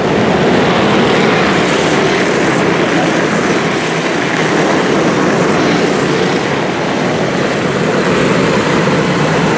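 A pack of Junior Predator dirt-track karts racing together, their small single-cylinder four-stroke Predator 212 engines running loud and steady at speed.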